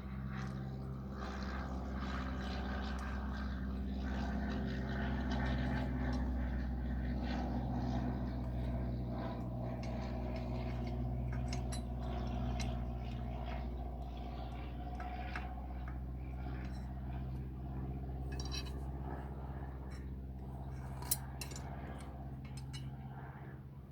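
Hand tools working mounting-kit bolts on a motorcycle: scattered light metallic clicks and clinks, with one sharp click about 21 seconds in, over a steady low hum.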